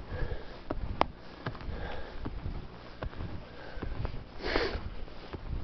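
A person breathing hard, with a breath every second or two (the strongest near the end), while trudging on snowshoes through deep snow. Scattered sharp clicks and crunches run under it.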